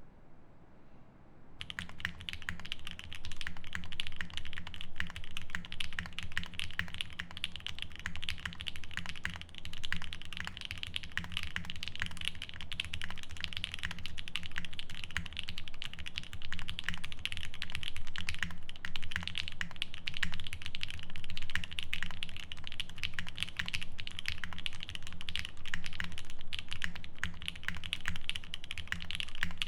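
Continuous fast typing on a 7V custom mechanical keyboard with lubed Durock L7 62g linear switches, a PC plate and GMK keycaps: a dense, unbroken stream of keystrokes that starts about a second and a half in.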